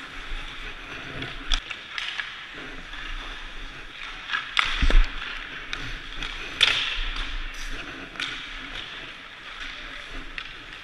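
Ice hockey rink during open practice: skate blades scraping on the ice under a steady hiss, with scattered sharp clacks of sticks and pucks. The loudest hits land around five and six and a half seconds in, the first with a dull thud.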